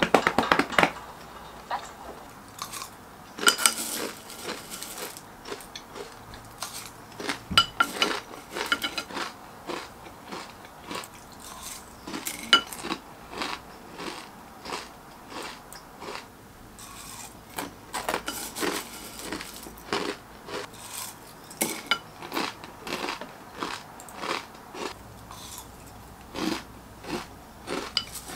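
Dry cornflakes being crunched and chewed, with a wooden spoon clicking and scraping against a ceramic bowl. It opens with a quick run of pats of a hand drumming on a full belly.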